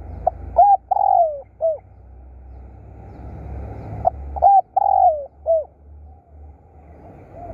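Spotted dove cooing: two phrases about four seconds apart, each a few short hooked notes around one longer falling coo, over a low steady rumble.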